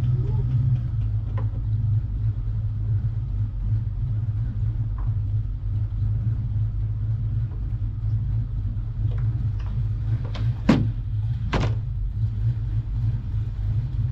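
1988 Mustang GT's 5.0 V8 idling steadily with a deep rumble, just after being jump-started. Two sharp thumps land about a second apart near the end.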